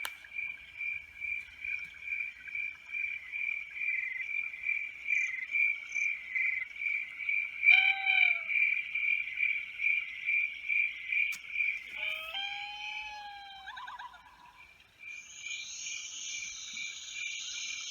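Recording of forest sounds played back: a steady pulsing chirp, about two and a half a second, with a bird call about eight seconds in, a few more calls around twelve to fourteen seconds, and a high buzzing hiss near the end.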